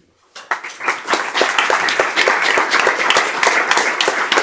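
Audience applauding. It starts about half a second in and builds within a second to steady clapping from many hands.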